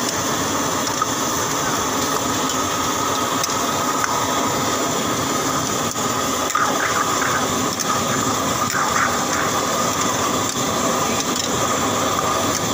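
Steady roar of a gas burner under a steel karahi, with prawns in masala sizzling as a ladle stirs them.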